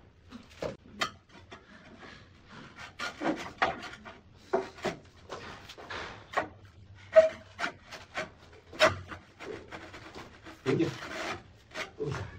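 Hand scraper scraping the concrete wall in short, irregular strokes. A few sharper knocks come as a large ceramic wall tile is handled and set against the wall, the loudest about seven seconds in.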